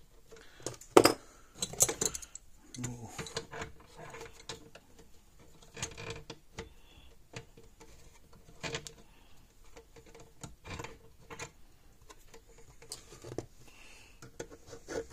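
Irregular clicks, taps and rattles of a screwdriver and pliers against small parts and the plastic case of an electric fence charger, as its fuse mount is worked on. A sharp knock about a second in is the loudest, with a quick cluster of clicks near two seconds.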